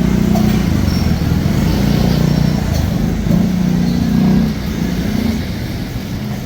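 Street traffic: motor vehicle engines running close by, a low hum that swells and fades as vehicles pass, easing off about four and a half seconds in.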